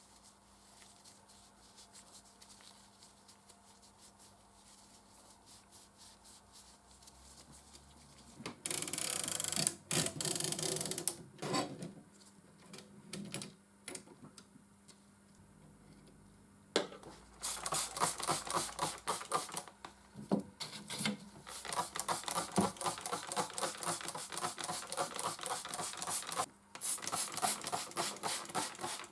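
Hand work on a Consul 221 typewriter during cleaning: faint ticking at first, a loud rushing noise for a couple of seconds about a third of the way in, and from about halfway on, quick repeated strokes.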